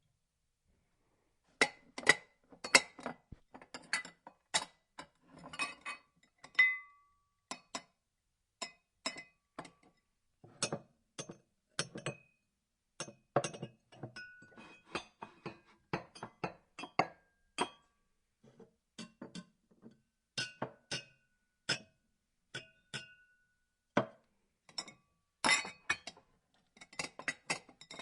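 Glasses clinking together again and again, each strike a sharp chink with a short ringing tone, some holding a clear pitch for a moment. The strikes come in an irregular series with short gaps, and a dense flurry of clinks comes near the end.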